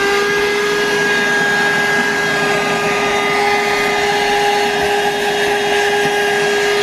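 Cordless Shark hand vacuum running steadily, its motor giving one constant whine.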